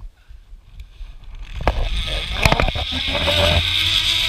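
Zip line trolley pulley running along a steel cable, starting about a second and a half in and then a steady loud whir and hiss with a low rumble. Several sharp metallic clicks sound over it, likely from carabiners and the trolley on the line.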